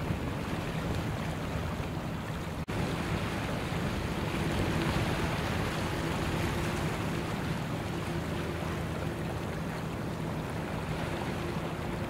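A fully loaded grab-bucket sand carrier under way: its diesel engine drones steadily under the rushing wash of its bow wave and wake. A brief dropout in the sound comes nearly three seconds in.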